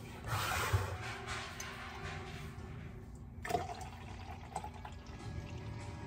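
Liquid pouring into a tall tumbler for about three seconds, then a single click.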